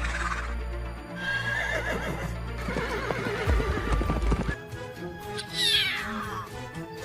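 A horse whinnying over background music, with a clear falling, quavering whinny about five and a half seconds in.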